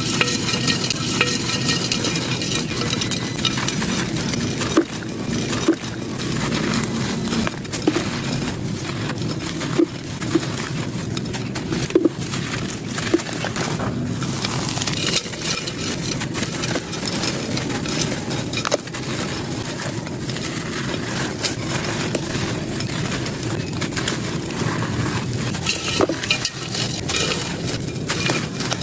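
Gritty sand-cement chunks being crushed and crumbled, a continuous crunching peppered with frequent sharp snaps as pieces break apart.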